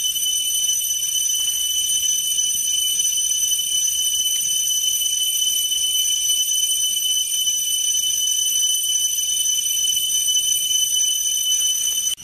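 Steady, loud, high-pitched insect drone holding one unchanging pitch, cutting off suddenly at the end.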